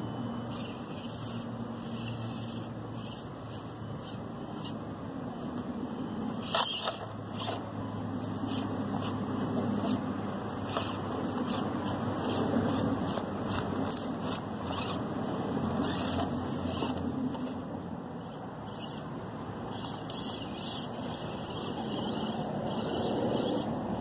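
Axial SCX24 Deadbolt micro crawler's small 88T electric motor and worm-gear drivetrain whining as it crawls over rocks, the pitch shifting as the throttle changes. Scattered clicks and scrapes of the tyres and chassis on stone come through, the loudest about six and a half seconds in.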